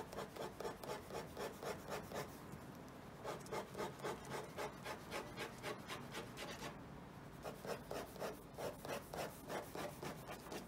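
Ballpoint pen hatching on paper clipped to a clipboard: quick scratchy back-and-forth strokes, about four a second, in three runs with short pauses between.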